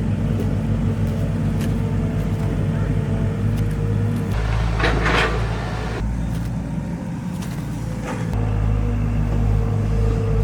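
Engine running steadily with a low hum, with a short rushing noise about five seconds in.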